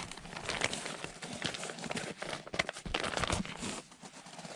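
Footsteps: a run of irregular short crunching steps.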